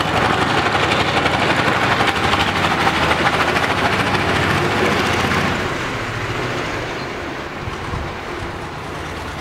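Engine of a three-wheeled mini dump truck running as it is driven, with a rapid, even pulse; it grows quieter about halfway through.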